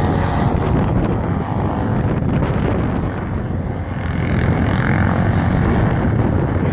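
Racing motorcycles' engines running as they lap the circuit, a steady mixed engine noise that grows louder about four seconds in.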